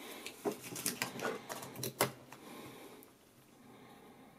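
Sharp plastic clicks and knocks as AAA batteries are handled and pushed into the goggles' plastic battery compartment, the loudest click about two seconds in, then quieter fumbling.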